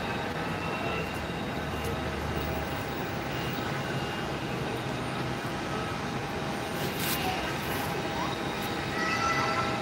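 Steady airport apron background noise: a constant rush and hum with a few faint, steady whining tones running through it.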